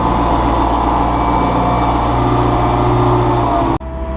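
Diesel engine of a piece of heavy equipment running steadily under work, with a steady hum of tones. It drops out abruptly for an instant near the end and comes straight back.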